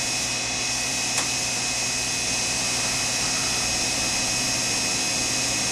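Miniature Sherline CNC cam grinder running: a steady high-pitched motor whine and hum as the program moves the machine toward its start point, with one faint click about a second in.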